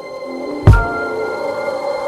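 Background electronic music with held synth notes and one deep, heavy beat about a third of the way in.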